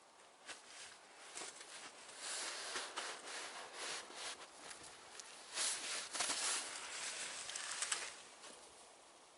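A shovel digging into and scraping through deep snow in irregular strokes, with crunching and hissing scrapes that come loudest in the middle of the stretch.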